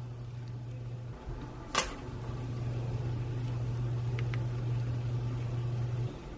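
Electric stand mixer's motor giving a steady low hum, which breaks off briefly after about a second and stops near the end. A single sharp click about two seconds in.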